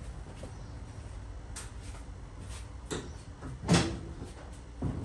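A few separate knocks and clunks from items being handled, the loudest a heavier thump near the end, over a low steady hum.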